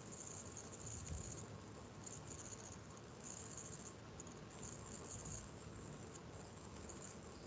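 Faint background noise from an open microphone, with short, recurring stretches of high-pitched trilling.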